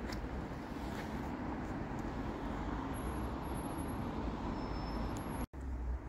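Steady hum of town road traffic from the streets below, with no single vehicle standing out. It breaks off for a moment near the end.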